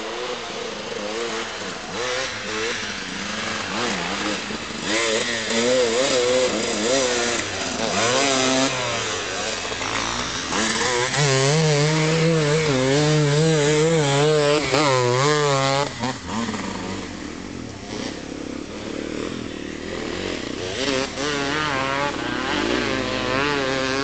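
Enduro motorcycle engine revving up and down over and over as the throttle is worked, loudest for several seconds past the middle, then dropping back and building again near the end.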